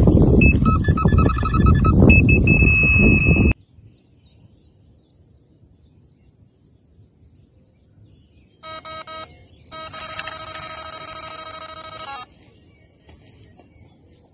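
Electronic carp bite alarms sounding. First, one alarm beeps and then holds a steady tone under heavy wind noise on the microphone, and it cuts off suddenly. After a quiet gap, another alarm gives a few rapid bleeps and then sounds one continuous tone for about two and a half seconds, the signal of a carp taking line fast: a run.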